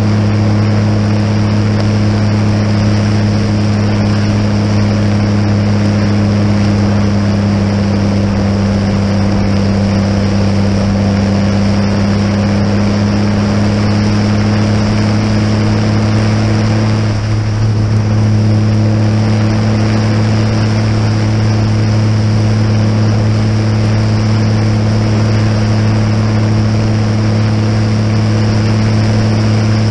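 Tractor engine pulling a muck cart, running at a steady speed with a deep, even drone. The drone dips and wavers briefly a little past halfway, then settles back to the same steady note.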